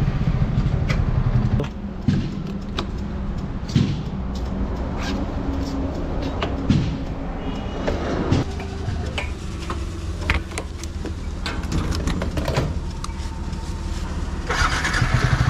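Yamaha sports motorcycle engine running, louder for the first couple of seconds, then settling to a steady idle with scattered clicks and knocks, and getting louder again near the end.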